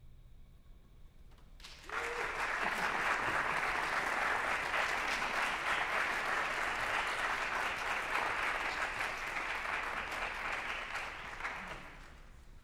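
The band's final chord dies away, then audience applause breaks out about two seconds in. The applause stays steady and fades out near the end.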